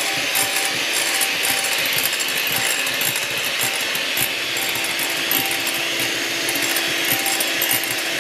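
Electric hand mixer running steadily, its beaters whipping instant coffee, sugar and hot water in a glass bowl.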